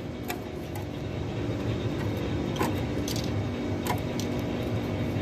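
Steady mechanical hum with a handful of short metallic clinks, three or four, like hand tools touching metal.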